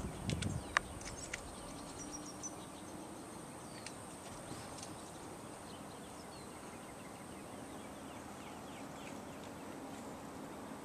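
Open-field outdoor ambience: a steady hiss with faint, scattered bird chirps and a thin, steady high insect-like drone. A few sharp clicks and knocks come in the first second.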